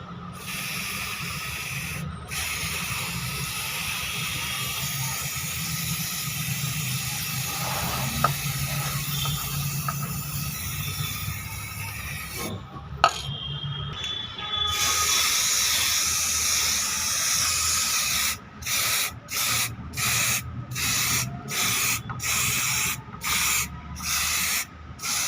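Coating being sprayed onto a window air conditioner's coil: a steady hiss that breaks off briefly twice, then comes in a string of short bursts near the end.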